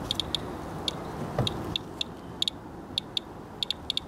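Radalert Inspector Geiger counter clicking at random, irregular intervals, about four clicks a second, each click a detected count from a wet wipe sample of rainwater. A soft thump comes a little over a second in.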